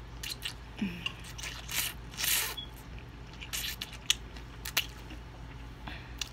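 Slurping spicy instant ramen noodles off a fork, with wet mouth smacks. There is a longer slurp about two seconds in and sharp smacks near four and five seconds.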